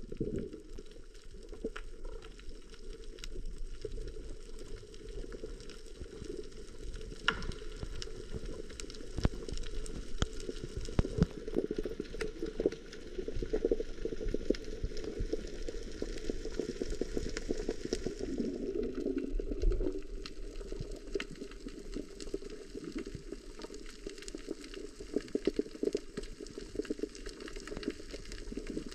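Underwater sound heard through a submerged camera: a muffled, steady low rush of water with many scattered sharp crackling clicks.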